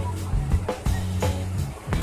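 Music with drums and a sustained bass line.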